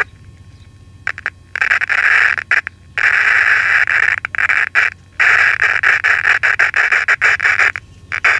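Small speaker of a vintage Coronado AM transistor pocket radio putting out loud harsh noise in bursts that cut in and out abruptly. The radio draws too much current with its audio output transistors getting hot, a short that the repairer suspects lies in bad output transistors.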